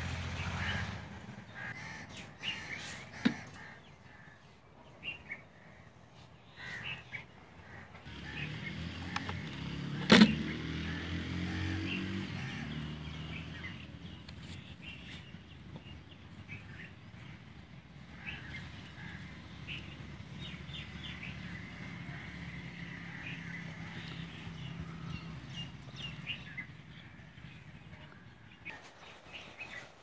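Small birds chirping on and off, short high calls scattered throughout. A sharp knock about three seconds in and a louder one about ten seconds in, with a low hum swelling around the middle.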